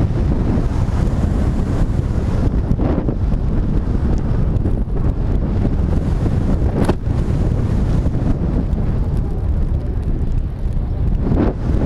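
Wind rushing over the microphone of a camera mounted on a flying stunt kite: a loud, steady, low rumble of wind buffeting, with a brief sharp noise about seven seconds in and another near the end.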